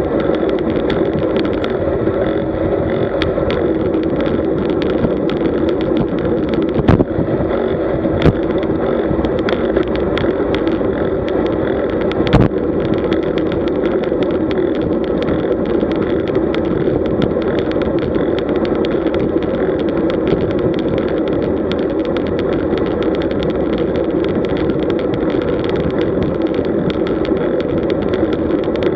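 Steady rush of wind over a bike-mounted camera's microphone with tyre-on-asphalt noise from a road bike riding at around 36–40 km/h. A few sharp knocks from bumps in the road come in the first half.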